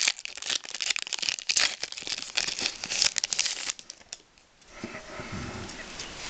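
A sealed trading-card pack's wrapper crinkling and tearing as it is pulled open, stopping about four seconds in. A softer, steady rustle follows.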